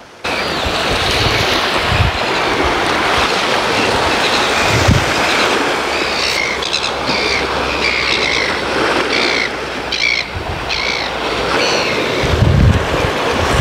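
Steady rush of wind and sea on a rocky shore, with gusts thumping the microphone now and then. Around the middle a seabird gives a quick run of about eight short calls.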